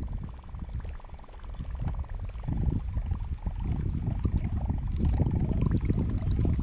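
Water sloshing and gurgling close to the microphone, irregular and low, growing louder about two and a half seconds in.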